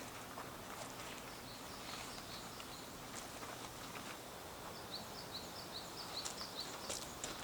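Outdoor ambience with a steady hiss. A small bird gives a quick run of short, high chirps about five seconds in, after fainter chirps earlier, with a few faint clicks scattered through.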